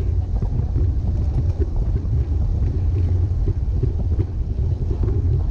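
Steady low rumble of wind buffeting the action camera's microphone together with road-bike tyres running on asphalt at about 31–35 km/h, with a few faint scattered clicks.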